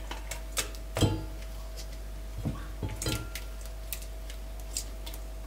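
Kitchenware being handled: scattered light clinks and knocks of dishes and utensils, the loudest about a second in, over a faint steady hum.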